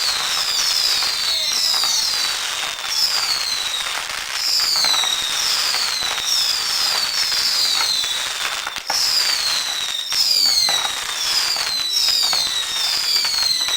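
A fireworks cake firing a rapid barrage of whistling shots. Each whistle falls slightly in pitch, and they overlap at about one or two a second over continuous crackling, with a few sharp bangs in between.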